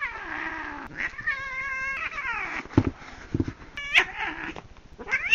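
Young cat yowling and meowing in a series of drawn-out calls, some falling and some rising sharply, with two dull thumps near the middle.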